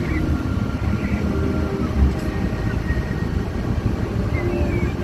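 Steady low engine and road rumble inside a moving transit bus, heard from the passenger cabin.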